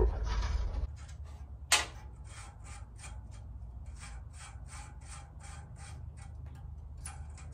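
Ratchet wrench clicking in an even run of about three clicks a second while loosening an exhaust manifold nut, after a single sharper click about two seconds in.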